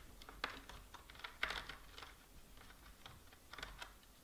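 Faint, irregular small clicks and ticks of a hand driver turning out the small screws holding a plastic strut brace on a Tamiya Midnight Pumpkin RC truck, with a few tiny taps of the parts being handled.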